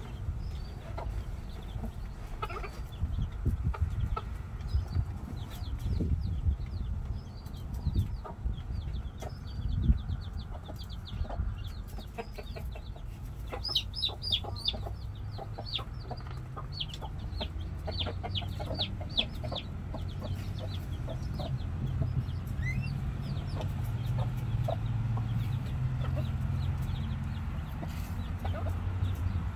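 Chickens clucking, mixed with chicks' short, high, falling peeps that come in quick runs and are busiest about halfway through. A steady low rumble lies underneath.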